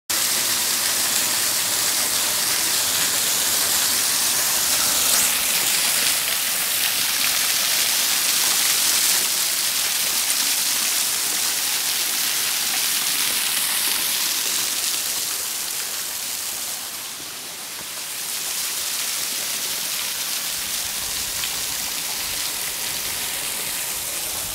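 Small waterfall pouring off a rock ledge and splashing onto rocks in a shallow pool: a steady, even rush of falling water. It dips briefly about two-thirds of the way through and settles a little quieter.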